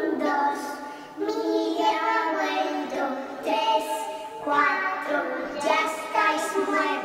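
A high voice singing long, drawn-out phrases of a melody, with a short break between phrases about every second or so.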